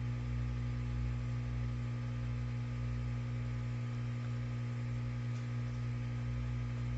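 Steady low electrical hum with a stack of even overtones and a faint hiss.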